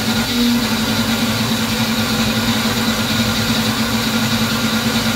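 Small personal blender motor running steadily with an even hum, blending boiled butternut squash and water into a thick purée.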